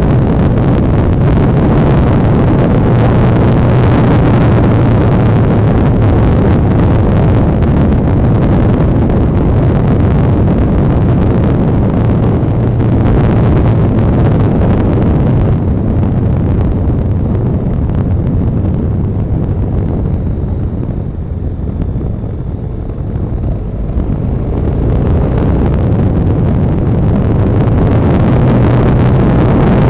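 Honda Dominator NX650's single-cylinder thumper engine running on the move, heard from the bike with a thick rush of wind noise over it. Engine and wind fall quieter for a few seconds past the middle, then build again.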